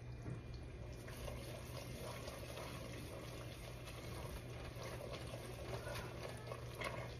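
Candy-apple sugar syrup boiling hard in a large steel pot, a faint, steady bubbling and crackle as it is stirred, with a steady low hum underneath. The syrup is almost at 300 degrees, the hard-crack stage.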